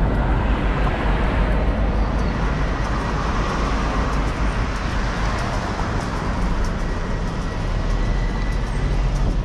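Steady rushing noise of a bicycle being ridden along a city sidewalk: wind over the microphone mixed with street traffic.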